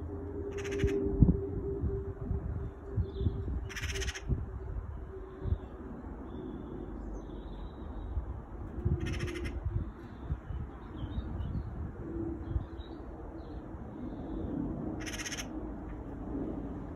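Distant rumble of a British Airways Airbus A350 jet airliner passing high overhead, steady throughout. A bird gives four short calls over it, at about one, four, nine and fifteen seconds in.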